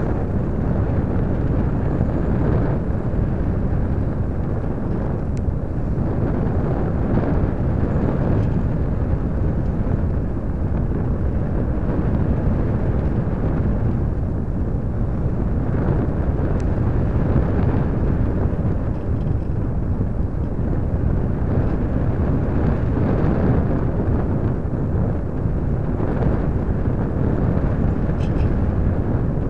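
Wind rushing over the microphone of a small keychain camera mounted on a Parkzone Radian electric glider in flight: a steady, even rush of noise, mostly low, with no clear motor whine.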